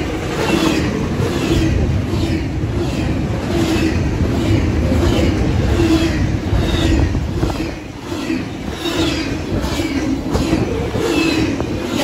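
Double-stack intermodal freight train passing close at speed: a steady heavy rumble of steel wheels on the rails, with repeated clacks about twice a second. Wind buffets the microphone.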